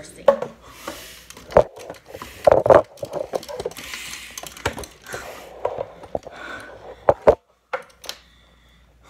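A run of sharp, close knocks and rustles from handling, irregular and uneven in loudness, with a brief hiss about four seconds in. It falls nearly silent shortly before the end.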